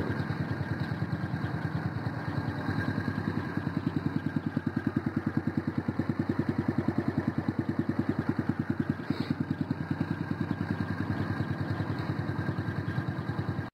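Honda CRF110F's small single-cylinder four-stroke engine idling steadily through a Yoshimura RS-2 full exhaust, with an even, rapid train of exhaust pulses.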